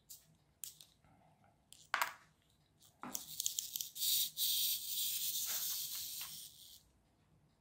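A few light clicks of plastic kit parts, then the kit's small wind-up clockwork motor whirring for about four seconds before it stops.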